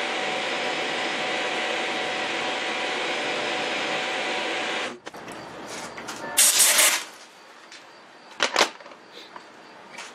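Milling machine running with its end mill cutting a pocket in a metal bar, a steady noise that cuts off abruptly about five seconds in as the spindle stops. Shortly after comes a loud hissing burst of about half a second, then a couple of sharp knocks.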